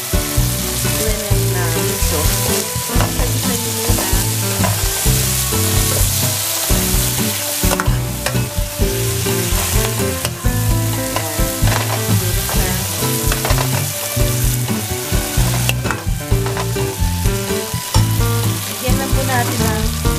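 Sliced onions and tomatoes sizzling in hot oil in a nonstick pan, stirred with a metal spoon that scrapes and clicks against the pan.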